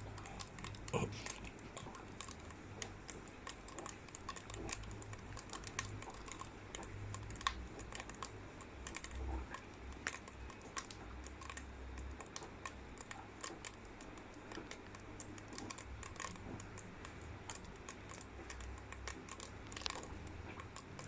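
Trap-jaw ants (Odontomachus) snapping their mandibles shut: a faint, irregular patter of sharp clicks, several a second, as the colony attacks a foreign object in panic.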